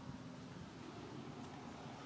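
Faint, steady low hum under a light background hiss, with no distinct event.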